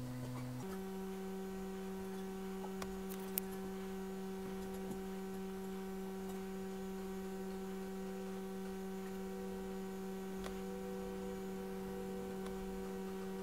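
Steady electrical hum: a low buzzing tone with a stack of overtones, stepping up to a higher pitch just under a second in, with a faint tick a few seconds in.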